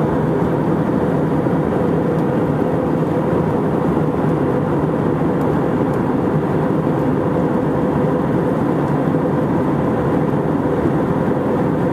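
Steady cabin noise inside an Airbus A319 in flight: a constant drone of engines and airflow, with a faint steady hum.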